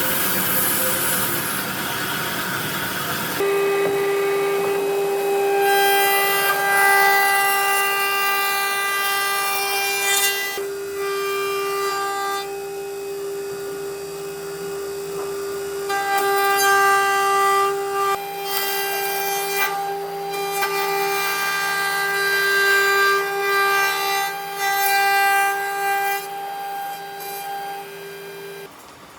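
Woodworking power tool cutting wood. A rough rushing noise comes first, then a steady high machine whine from a few seconds in, which swells and eases as the tool works and stops shortly before the end.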